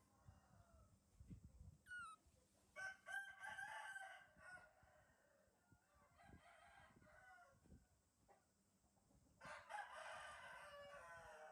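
Faint rooster crowing: three long crows, about three seconds in, about six seconds in, and a longer one near the end.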